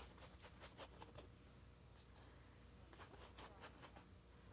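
Faint scratchy strokes of a bristle paintbrush scrubbing acrylic paint onto canvas: a quick run of strokes in the first second or so, a pause, then another run about three seconds in.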